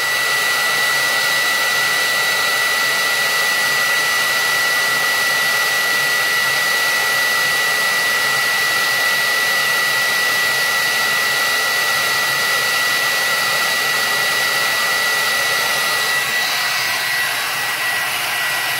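Hair dryer running steadily, blowing hot air onto a fuel injector, with a constant high whine over the rush of air.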